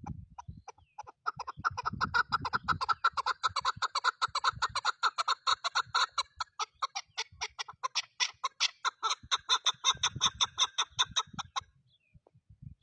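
Chukar partridge calling: a long, fast run of clucking chuk notes, many a second, starting about a second in and stopping shortly before the end.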